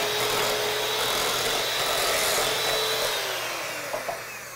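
Electric hand mixer running steadily, its beaters churning a thick mashed-squash mixture in a bowl; about three seconds in it is switched off and the motor's whine slides down in pitch as it winds down.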